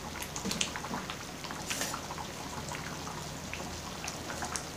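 Tripe stew in thick tomato sauce boiling in a pot, the sauce bubbling with many small scattered pops and a few louder ones.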